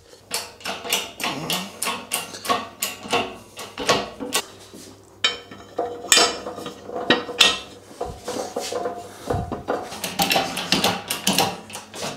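Steel parts clinking and knocking in irregular sharp strikes, some with a short metallic ring, as uni-ball bushings are pressed into a rear suspension trailing arm.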